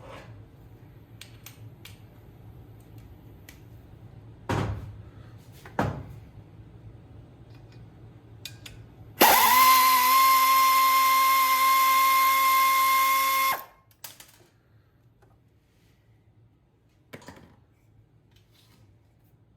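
Power drill spinning a socket on the 10 mm nuts of a GY6 scooter engine's muffler: one steady, even-pitched motor whine lasting about four seconds, starting and stopping abruptly. Two short knocks come a few seconds before it.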